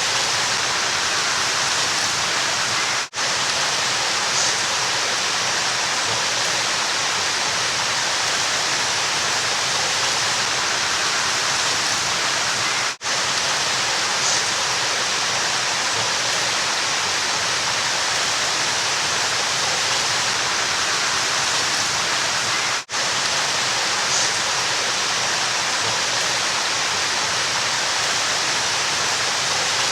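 River water flowing in a steady, full rush. It cuts out for an instant three times, about ten seconds apart.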